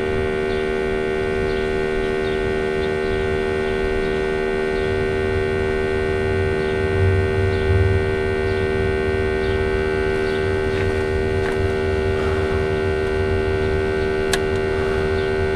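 Smoke tester's pump running with a steady electric hum, pushing smoke into the intake manifold to find vacuum leaks.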